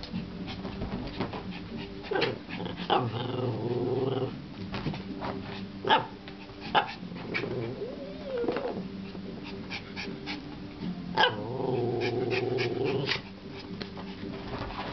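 Small dog growling in play while chasing a laser dot: two long growls with a short rising-and-falling whine between them, and many short sharp yips throughout.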